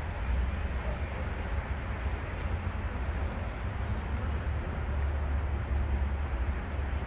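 Steady outdoor rumble and hiss, strongest in the low end, without any distinct calls or knocks.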